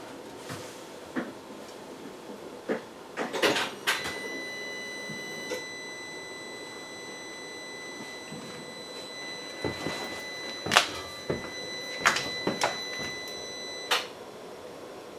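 Clicks and knocks of hands at the Polaris RZR 1000's controls, then a steady high-pitched electronic tone that comes on abruptly as the key is switched on and the vehicle's electrics power up. The tone holds for about ten seconds and cuts off with a click.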